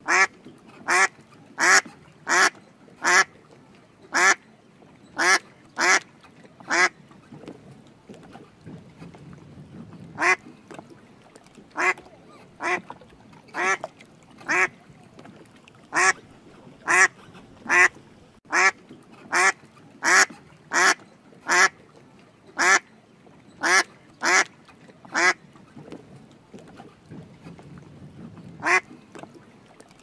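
Black swan giving short calls, one about every second in runs, with a few pauses of two to three seconds between runs.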